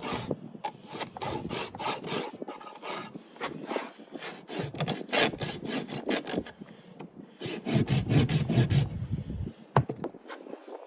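Farrier's hoof rasp filing a horse's hoof in rapid back-and-forth strokes, stopping about a second before the end, followed by a single sharp knock.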